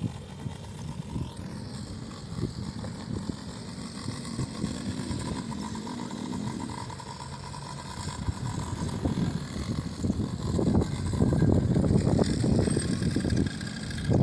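Engine of an off-road vehicle running, getting louder about ten seconds in.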